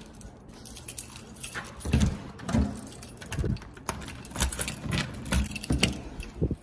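A bunch of keys jangling on a ring and clicking against a door's deadbolt lock and handle as the door is unlocked, with a few low knocks from handling.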